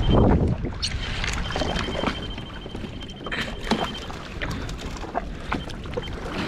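Water slapping and splashing against a jet ski's hull while it drifts, with wind buffeting the microphone and a loud splash or knock at the start.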